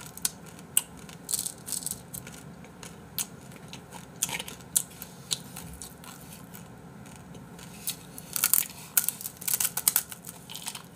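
Dry, uncooked instant ramen noodles crackling and snapping as they are broken apart by hand in a paper cup and crunched raw between the teeth: sharp, irregular clicks that come thickest about eight to ten seconds in.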